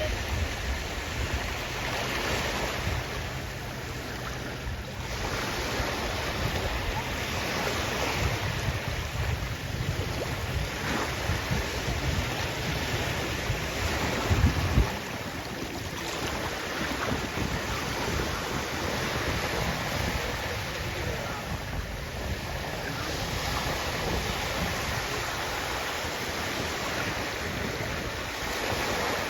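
Sea waves breaking and washing ashore, the surf swelling and easing every few seconds, with wind rumbling on the microphone and one sharp gust about halfway through.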